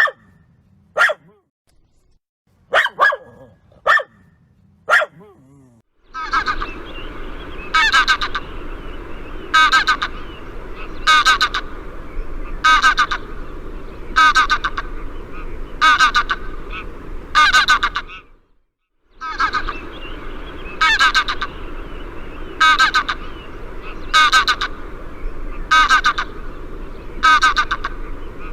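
Duck calling repeatedly, about one loud call a second over steady background noise, with a short break partway through. A few short, sharp calls come before the steady run begins.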